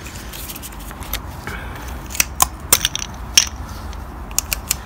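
Sharp plastic clicks as a wire hook puller grips and pops plastic wheel-bolt caps off an alloy wheel, starting about two seconds in, with a quick cluster of clicks near the end.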